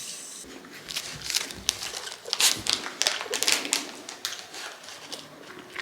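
A pet eating dry kibble from a bowl: irregular crunching and clicking of the pieces, busiest in the middle.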